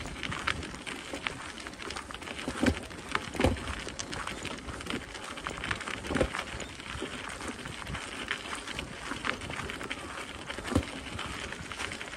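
Footsteps walking steadily along a gravel path, with a few heavier steps, over a steady outdoor background hiss.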